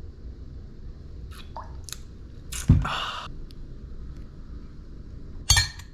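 A steady low rumble with a few short knocks and rustling bursts; the loudest is a thump with a brief rustle near the middle, and another short burst comes near the end.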